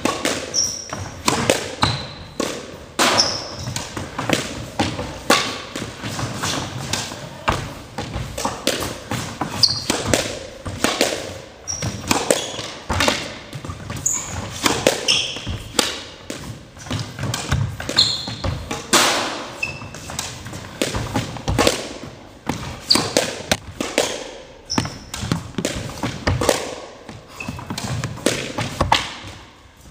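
Squash rally: the ball struck by rackets and smacking off the court walls, a sharp echoing hit every second or so, with short high squeaks of shoes on the court floor.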